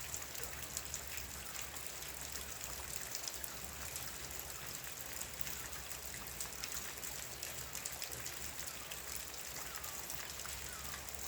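Steady rain falling, an even hiss dotted with many small ticks of individual drops.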